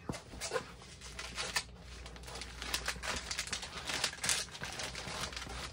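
Plastic rustling and crinkling as a diamond painting canvas and its film cover are pushed and smoothed into a clear plastic storage sleeve. The crackles come in irregular bursts and grow busier in the second half.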